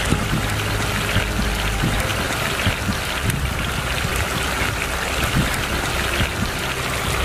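Sauce sizzling and bubbling around fried chicken pieces in a hot pan, a steady crackling hiss.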